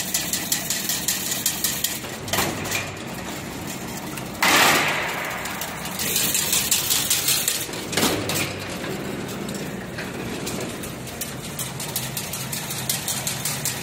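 Automatic chain link (diamond mesh) fence weaving machine running: a steady motor hum under a fast, even, repeating mechanical clicking as it weaves wire mesh. There are louder surges of clatter about four and a half seconds in and again around six to seven seconds.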